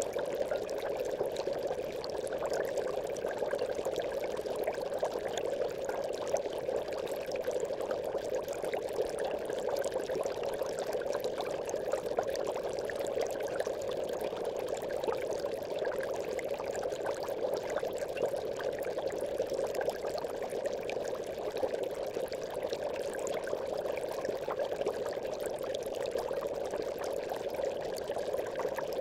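Aquarium bubbles rising through the water in a continuous, even bubbling.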